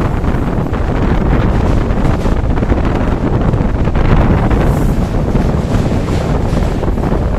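Loud, steady wind buffeting the microphone, a heavy low rumble of noise.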